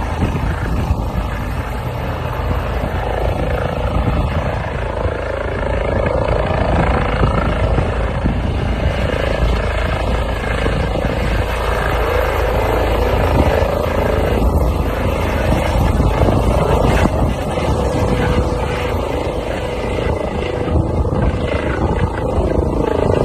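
Helicopter hovering low, its rotor and turbine running steadily: dense low rumbling noise with a steady tone running through it, the loudness swelling and easing slightly as the helicopter turns.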